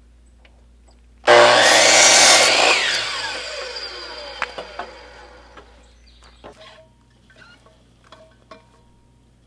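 DeWalt miter saw starting up and cutting through a wooden board, then its motor and blade spinning down with a falling whine. A few light knocks follow near the end.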